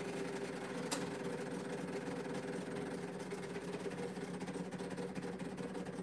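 Decent espresso machine's pump humming steadily while pulling an espresso shot, with a single sharp click about a second in.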